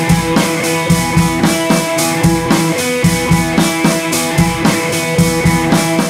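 Background music with a steady drum beat over sustained instrument tones.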